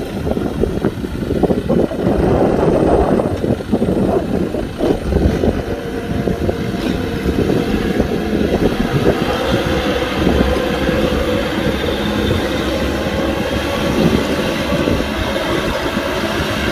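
Kubota tractor's diesel engine running steadily while plowing, with irregular knocks and rattles in the first few seconds.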